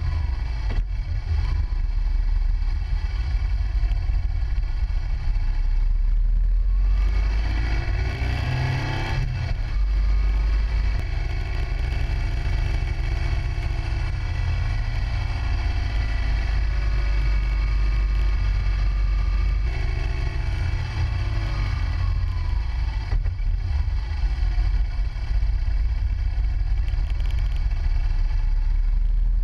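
Motorcycle engine running on the move, its revs rising and falling a few times through the bends, under a heavy rumble of wind on the bike-mounted microphone.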